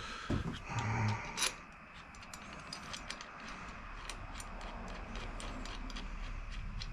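Hand ratchet clicking, about three clicks a second, as a mounting bolt for a handguard clamp is run in, after a short knock about a second and a half in.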